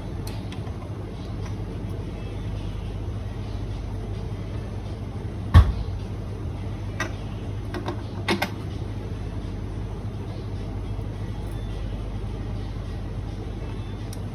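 A sharp knock and then a few lighter clicks, as Eureka coffee grinder parts are handled during cleaning, over a steady low hum.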